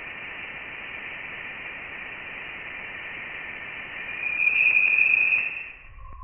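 An eerie space recording played as sound: steady static-like hiss with a high, thin band of tones over it. About two-thirds of the way in, a louder shrill tone swells up, then the whole sound fades out near the end.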